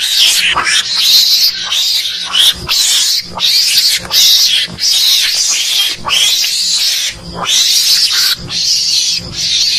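Mongoose (garangan) lure call: a loud, continuous run of harsh, high-pitched squealing calls, broken by short gaps every half second or so.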